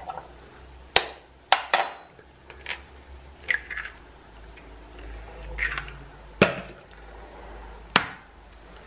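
Raw eggs tapped and cracked against the rim of a glass mixing bowl: a few sharp, separate clicks, the strongest about a second in, past six seconds and near the end, with softer shell and handling noises between.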